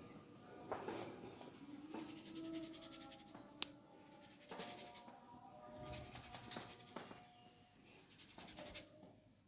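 Fingers rubbing and scratching through hair on the scalp in a head massage: short rustling bursts of quick strokes, roughly one a second, with one sharp click about three and a half seconds in.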